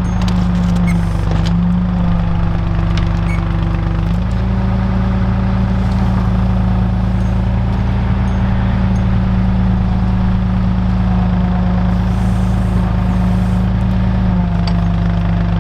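Engine of a machine running steadily under load, its pitch stepping up slightly about four seconds in, with a few sharp knocks in the first couple of seconds.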